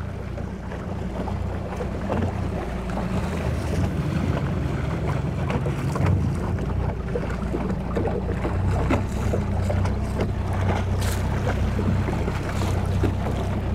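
A 150 hp Mercury four-stroke outboard idling along, running with a quiet, steady low hum, while waves splash against the hull and the propeller churns the water.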